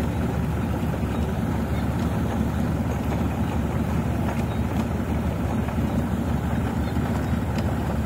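Rice combine harvester running steadily while unloading paddy through its auger into a lorry: a constant low mechanical drone.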